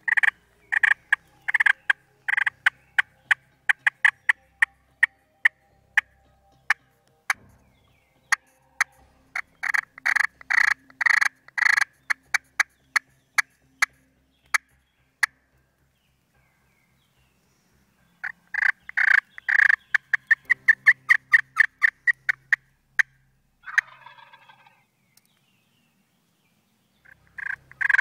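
Turkey yelps and cutts played on a friction pot call with a wooden striker: runs of short, sharp, high notes in three long series with brief pauses between, then a short rougher burst.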